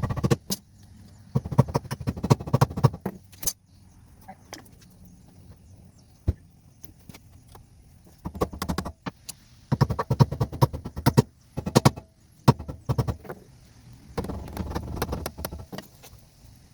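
Rapid metallic clattering from tool work on a car's rear wheel hub, coming in about five bursts of one to two seconds each with short pauses between.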